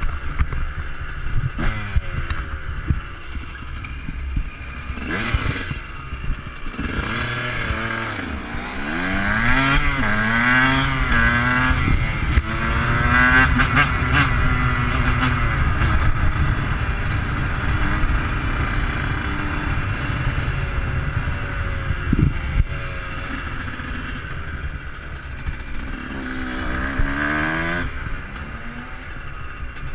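Yamaha YZ125 two-stroke motocross engine revving up and falling back repeatedly, held high for several seconds through the middle, with heavy wind rumble on the helmet camera's microphone and a sharp knock about two-thirds of the way through.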